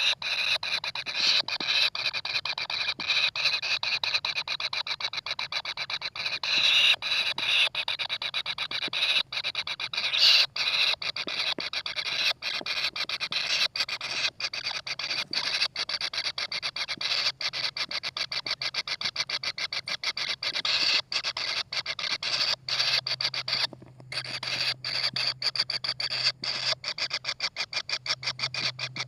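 Kingfisher nestlings giving a fast, continuous rasping begging call, a dense chatter of many pulses a second that cuts off abruptly at the end.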